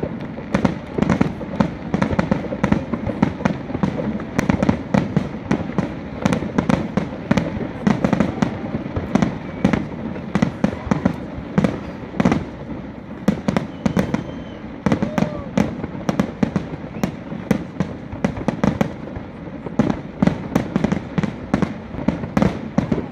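Fireworks display: shells bursting in a dense, unbroken run of bangs, many overlapping one another.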